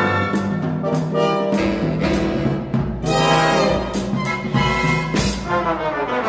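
Orchestral music with brass and timpani, played in short accented hits, swelling about three seconds in, with a falling run of notes near the end.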